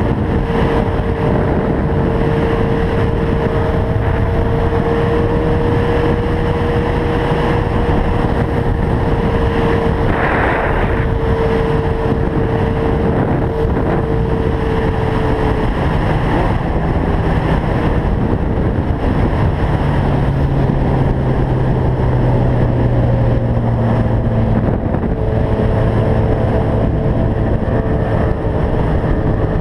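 Inline-four sportbike engine running at a steady cruising speed, heard onboard under heavy wind rush on the microphone. The engine note holds steady for the first half, then sits lower through the second half.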